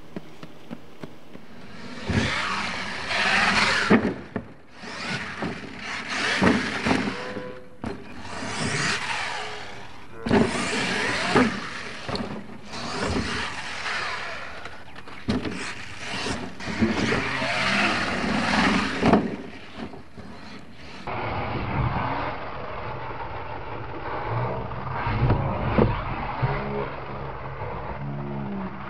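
Radio-controlled monster truck driven over a dirt course in repeated short bursts of throttle, its motor and tyres running up and dropping away every second or two. The sound turns steadier after about twenty seconds.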